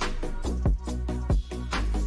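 Background electronic music with a heavy kick drum about every two-thirds of a second over a deep sustained bass and held synth chords.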